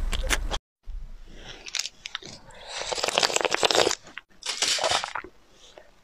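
Close-miked ASMR eating sounds: a few sharp crisp clicks, a brief dropout, then two long bursts of crunching and wet mouth noise.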